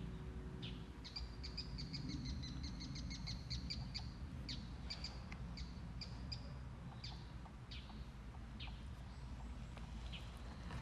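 Small birds chirping: short, high calls repeated every half second or so, with a quick run of chirps in the first few seconds, over a steady low outdoor rumble.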